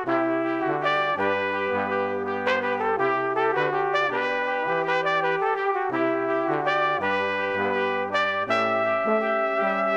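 Instrumental background music led by brass, with sustained notes and chords changing about twice a second over a bass line.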